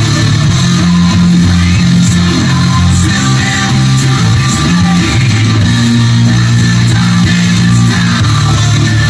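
Hard rock music with heavy electric guitars and bass guitar playing steady, held low notes that shift every second or so.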